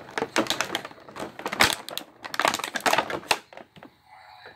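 Thin clear plastic blister packaging crackling and clicking as it is pressed and worked down over a plastic toy van, in quick uneven bursts that die away about three and a half seconds in.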